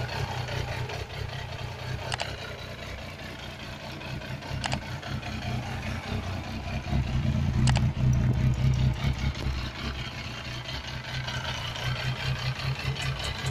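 Benelli TNT 1130R's three-cylinder engine idling through its under-seat exhaust, growing louder for a couple of seconds about seven seconds in.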